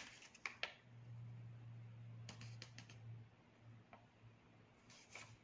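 Faint paper rustles and small clicks as the pages of a folded instruction manual are handled and turned, a few soft strokes at a time over near-silent room tone, with a low steady hum for about two seconds in the middle.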